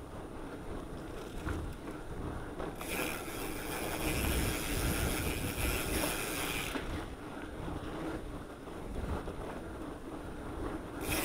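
Mountain bike rolling along a dirt trail: tyres rumbling over the ground with rattling from the bike and wind on the microphone. A brighter hiss joins for about four seconds from roughly three seconds in, and again near the end.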